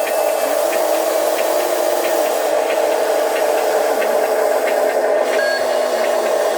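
Electric motors and plastic gearboxes of RC construction models running, a steady whining hum with faint ticking and brief shifts in pitch as the machines work.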